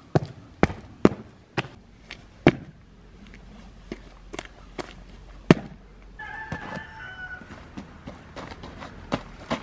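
A rooster crows once, about six seconds in, for about a second and a half. Before it comes a run of sharp knocks, about two a second, for the first five or six seconds.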